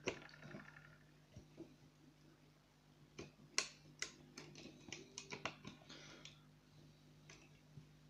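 Scattered sharp metal clicks and ticks from a lever pick and tension tool in the keyhole of a Union three-lever mortice lock, with a busy run from about three to six seconds in. The lock is open and the lever pick is stuck in the keyhole.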